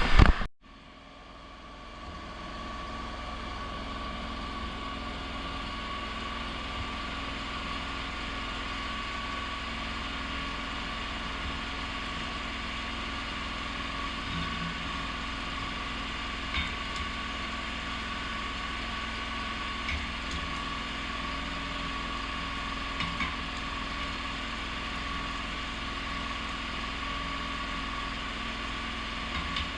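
A 6010 stick-welding arc crackles loudly and cuts off about half a second in. After that the welding machine runs with a steady, engine-like hum, with a few faint clicks.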